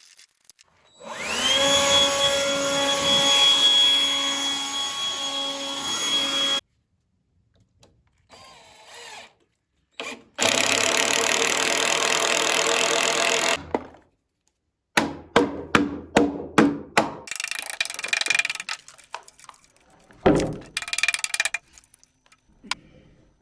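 An electric drill spinning up to a steady whine and running into timber, in two runs, followed by a string of sharp knocks and clicks.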